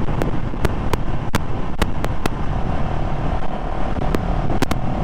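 CFMoto CLX 700 motorcycle riding at road speed: the engine runs steadily under a constant wash of wind and road noise, with scattered sharp clicks. A steady whine joins about halfway through.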